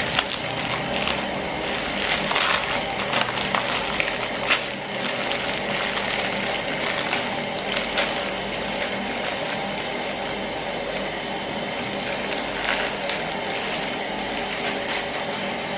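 Plastic instant-noodle packet crinkling as it is torn open, and the dry noodle block cracking and crackling in the hands. The crackles come in scattered bursts, most of them in the first five seconds and a couple more later, over a steady hiss.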